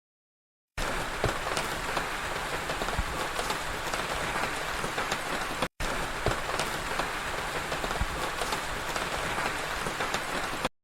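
Rain falling steadily, a dense hiss with the patter of many separate drops. It starts abruptly about a second in and drops out for an instant midway.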